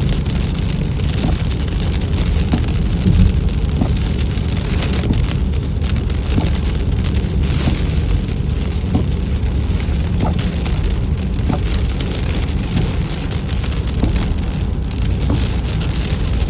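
Steady heavy rain falling, with scattered sharper drop hits over a deep steady rumble.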